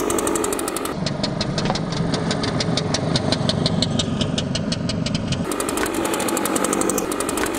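Gas backpack leaf blower's small engine running steadily with a rapid, even pulsing.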